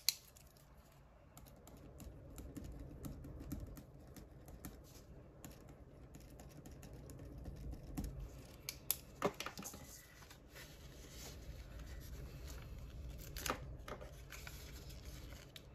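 Irregular light clicks and taps with faint paper and plastic rustling from handling and labelling cash envelopes in a budget binder, with a few sharper clicks about halfway through and near the end, over a low steady room hum.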